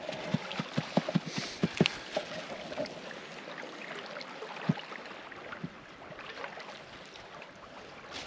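Wood campfire crackling: irregular sharp pops, thickest in the first two seconds and thinning out after, over a soft steady rush.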